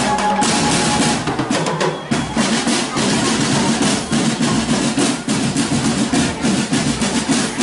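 Marching drum band playing: snare and bass drums beating a fast, steady rhythm, with snare rolls.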